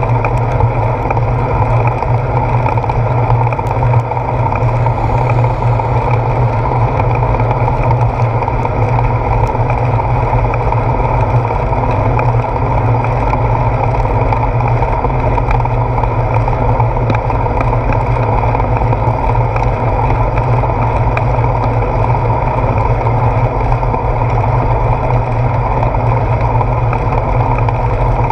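Steady, muffled rush of wind and road noise on a handlebar-mounted GoPro as a bicycle rides along a wet road.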